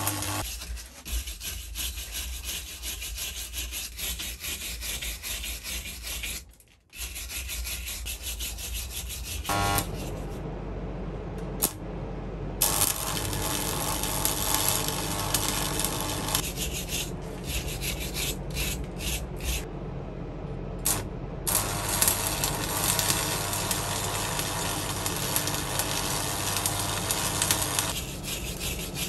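Stick welder's electrode arc crackling and hissing steadily, stopping briefly a few times between runs, over a low steady hum.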